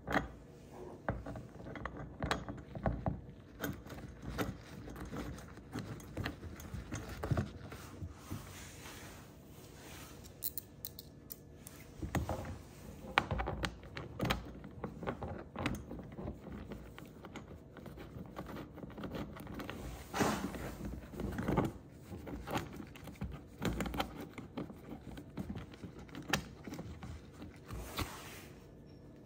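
Hard plastic mud flap and its screws and washers being handled and fitted against a fender liner: scattered clicks, knocks and light rattles of plastic and small metal parts.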